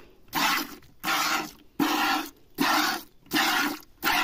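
A cow milked by hand into a bucket: squirts of milk striking the bucket in a steady rhythm, about one and a half a second.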